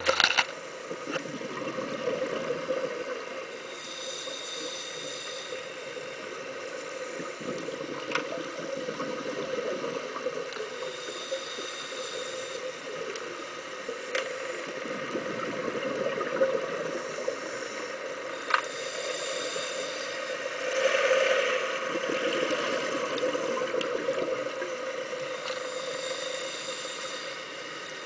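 Underwater sound heard through a camera housing: a scuba diver's regulator breathing, a high hiss of inhalation about every seven seconds and a louder bubbling exhalation surge about two-thirds of the way through, over a steady muffled rumble with a few sharp clicks.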